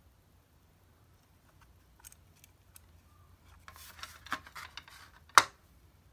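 Clear plastic audio cassette handled and turned over in the fingers: a few light clicks, a short stretch of plastic rustling and clatter, then one sharp click near the end, the loudest of them.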